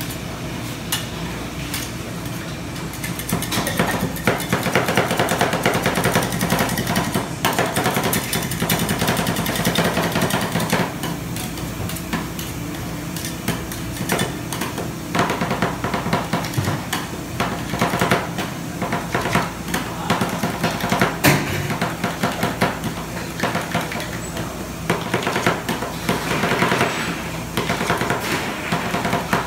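Two metal spatulas chopping and scraping ice cream on a frozen steel cold plate for rolled ice cream, a fast, continuous clatter of metal blades tapping the plate.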